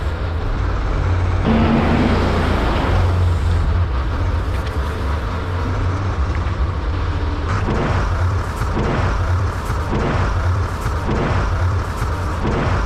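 Diesel tractor engine running steadily at work, with a rushing noise lasting about two seconds near the start.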